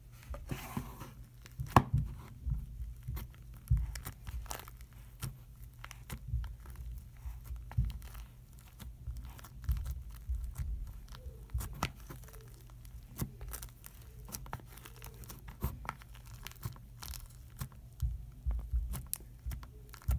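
Sticky Rice Krispie slime being poked and squeezed by fingers in its plastic container, giving a stream of irregular crackles, small pops and tearing sounds, with a few louder snaps.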